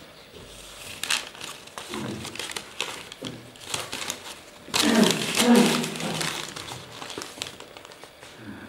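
Sheets of paper rustling and crinkling as they are unfolded and leafed through by hand, in irregular bursts, loudest about five seconds in.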